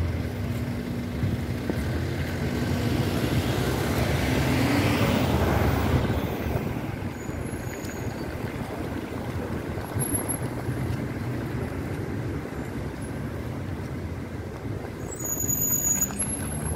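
Road traffic: a steady rumble of passing vehicles, one swelling louder and fading about four to six seconds in, with a few short high squeaks near the end.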